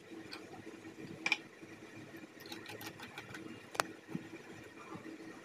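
Faint clicks and scrapes of a screwdriver turning a brass terminal screw on a plastic on-off switch to clamp a wire, with one sharper click about four seconds in, over a steady low hum.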